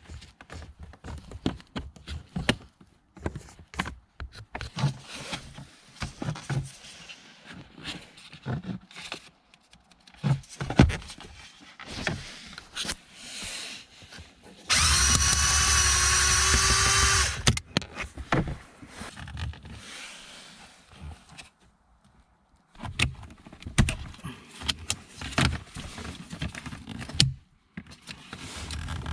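Scattered clicks and knocks of hand work on parts and tools, with a small electric motor whining steadily for about two and a half seconds midway. The motor starts and stops abruptly.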